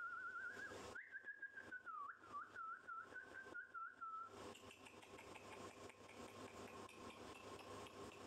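Someone whistling a thin, wavering tone, a short bit at the start and then a longer stretch of about three seconds with a regular warble, which stops about four seconds in.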